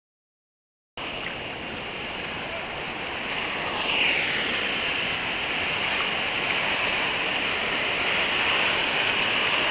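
Silence for about a second, then a steady rush of ocean surf and moving water, briefly louder at about four seconds.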